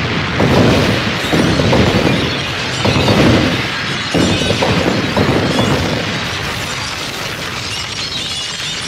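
Film sound effect of a large explosion: several heavy booms in the first four seconds, then a steady rumble with debris and glass shattering and crackling as the wreckage falls.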